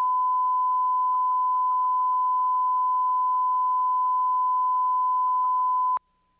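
Bars-and-tone line-up reference tone played back from the head of a standard-oxide Betacam tape: one steady, pure beep that cuts off suddenly about six seconds in.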